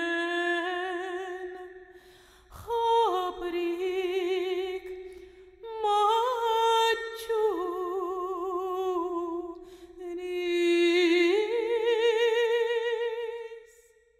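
A solo voice, unaccompanied and probably a woman's, sings a slow melody in four long phrases of held notes with a wide vibrato, then fades out near the end.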